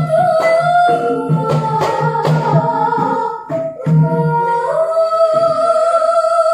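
Javanese gamelan music with a young female sinden singing a slow, gliding melody into a microphone. Struck metallophone notes and drum strokes sound through the first half, then thin out, leaving her held, slowly rising note over ringing tones.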